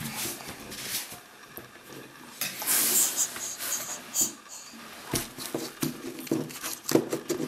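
A loud breathy rush of noise about two and a half seconds in, then the plastic Kinder Joy egg being picked up and turned over on a wooden table: a run of small knocks and clicks of hard plastic against the tabletop and fingers.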